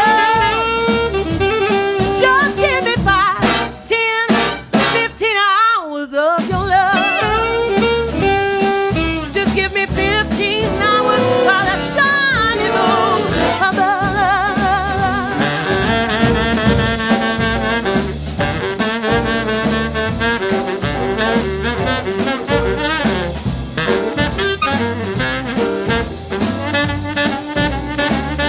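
Big-band swing music: a woman singing with wide vibrato over drums and bass, then the saxophones and brass playing together from about halfway through.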